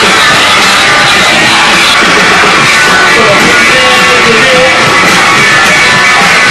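Loud rock music with guitar and singing, from a live band at an outdoor stage.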